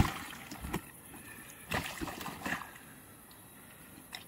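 Large mirror carp thrashing in a wet unhooking cradle. There is a sharp slap at the very start, then splashing and sloshing of water about two seconds in, with a few lighter knocks.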